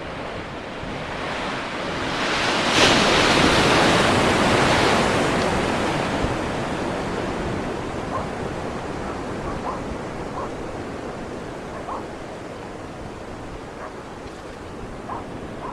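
Ocean surf: a wave breaking and washing in, swelling over the first few seconds and then slowly fading back to a steady wash.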